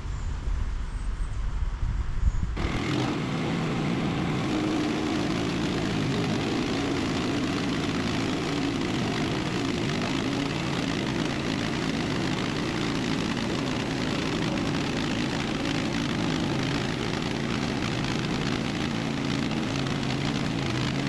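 Portable band sawmill's engine running steadily at speed, cutting in abruptly about two and a half seconds in after a low rumble.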